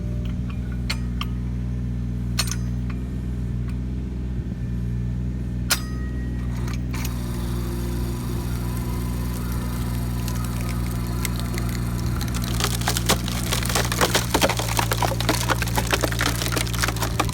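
Takeuchi TB219 mini excavator's diesel engine running steadily while the hydraulic cone splitter screws into a log, with a few sharp knocks in the first few seconds. From about twelve seconds in, the wood crackles and splinters as the cone splits the log apart.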